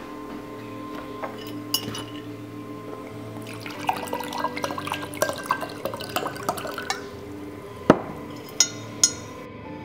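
Water poured into a glass tumbler, a splashing fill lasting about three and a half seconds, from about three and a half seconds in. It is followed by a sharp clink near the eight-second mark and two lighter clinks. Soft background music with held tones plays throughout.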